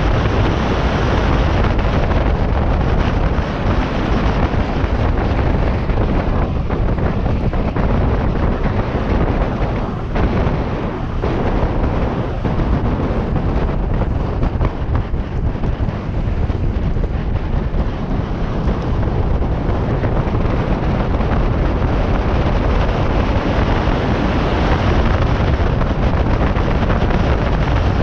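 Loud, steady wind noise buffeting the microphone of a camera moving fast downhill, over the rolling rumble of wheels on asphalt.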